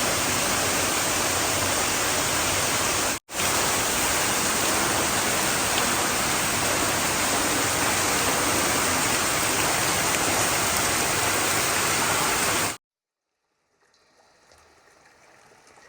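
Steady rush of a waterfall's falling water, with a momentary break about three seconds in. It cuts off suddenly near the end, leaving near silence.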